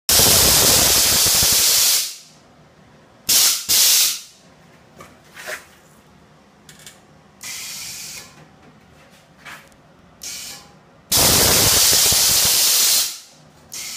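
Compressed air hissing in bursts from a bagged car's Ezair-managed air ride suspension. There is a long hiss at the start, two short puffs a few seconds in, a softer hiss near the middle, and another long hiss near the end.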